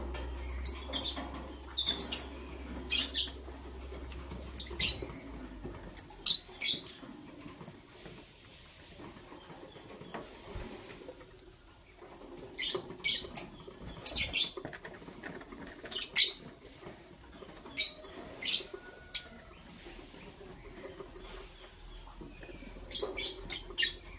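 Lovebirds giving short, sharp high-pitched chirps, one to three at a time every second or two, with a pause of several seconds midway. Soft rustling of the birds moving goes on underneath, and a low hum stops about five seconds in.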